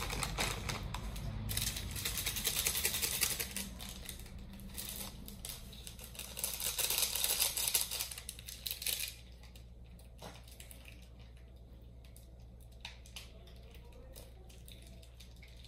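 Plastic food packets crinkling and being torn open by hand, a dense crackle with sharp clicks, loudest in the first two-thirds and then dropping to a faint background with a few scattered clicks.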